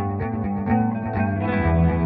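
Instrumental background music led by a guitar with effects, with a steady beat of plucked notes.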